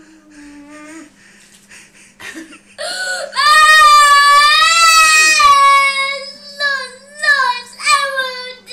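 A young girl crying: a soft whimper, then about three seconds in a long, loud wail, breaking up near the end into shorter sobbing cries.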